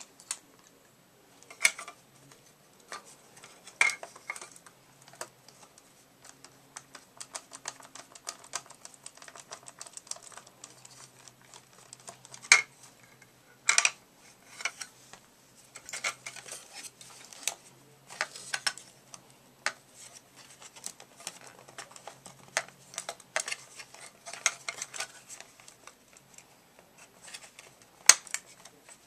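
Hard plastic parts of a Swivel Sweeper clicking, tapping and rattling as they are handled, with a few sharper snaps among the irregular clicks.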